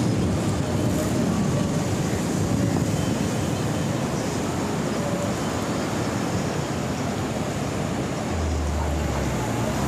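Wind blowing on the microphone with surf from the sea: a steady, rough noise. About eight seconds in, a low steady hum joins it.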